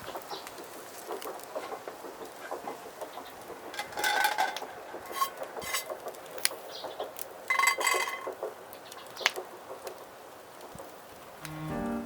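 Light clinks and knocks of cookware and utensils being handled, with two brief ringing clinks a few seconds apart. Piano music comes in near the end.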